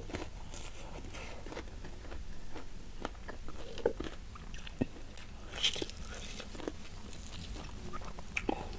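A person chewing crispy-coated fried chicken close to a clip-on microphone, with scattered crunches and wet mouth clicks. A few sharper crunches come about four to six seconds in.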